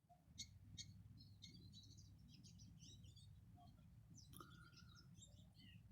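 Faint chirps and twitters of small songbirds, many short calls overlapping, with one longer held whistled note about four seconds in, over a low steady rumble.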